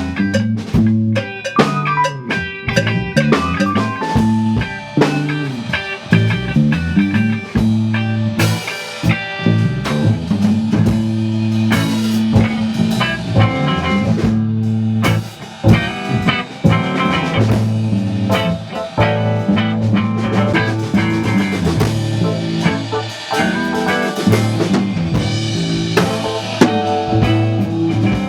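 Rock music played on guitar, bass and drum kit, with dense drum hits over a moving bass line.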